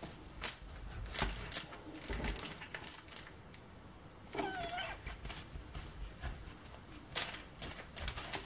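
Sharp kitchen knife cutting through a baked cheese-crust flammkuchen on a baking tray: a series of crunchy clicks and scrapes as the blade presses through the topping and parchment onto the tray. About halfway through comes a brief wavering animal call.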